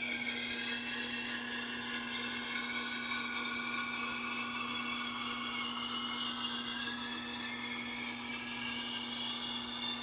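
Knife steel scraping on a sharpening stone as the santoku's edge is worked in a jig: a continuous high, hissing scrape whose pitch drifts slowly, over a constant low hum.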